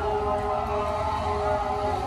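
Background music of long held notes, over a steady hiss of rain.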